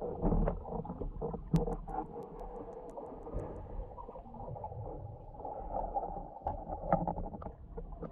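Muffled underwater sound picked up through a GoPro's waterproof housing: a steady low rumble with scattered clicks and knocks, one sharp knock about a second and a half in.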